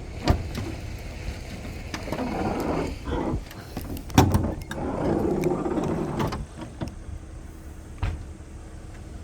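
Hood of a 1979 Chevrolet El Camino being unlatched and raised: clicks, then scraping and rustling, with a sharp clunk about four seconds in.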